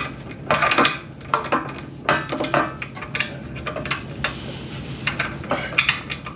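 Irregular metallic clicks and clinks of a 3/8-inch torque wrench and socket working a mounting bolt on a steel running-board bracket, in short clusters of quick ratcheting clicks.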